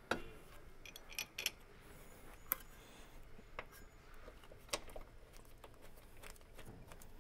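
Faint metallic clicks and clinks, a few scattered over several seconds, as a bolt is started by hand through a control arm bushing bracket into the car's frame.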